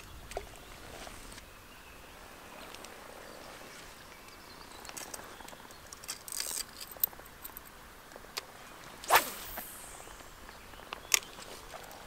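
Footsteps and crackling in dry grass and leaves, then a spinning rod swished through the air in a cast about nine seconds in, a quick swish falling in pitch. A single sharp click follows about two seconds later.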